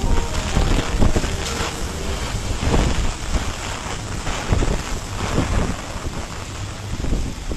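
Storm wind buffeting the microphone in gusts: a loud rushing noise with a heavy low rumble.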